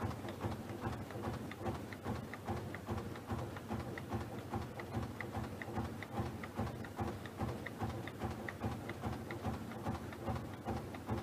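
Combined flexo printing and automatic punching machine running at speed, with rollers turning and a regular clack about two and a half times a second from the die-cutting strokes as it punches out paper-cup blanks.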